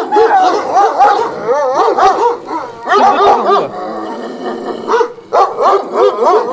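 Dog whining and yelping in a rapid run of wavering cries that rise and fall in pitch, with a short lull about four seconds in.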